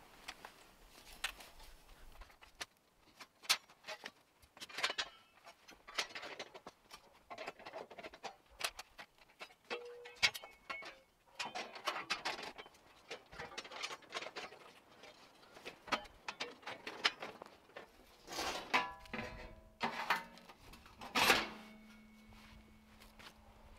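Metal fire-pit panels clinking, scraping and knocking together as they are fitted into a ring. Near the end a few harder knocks leave the metal ringing briefly.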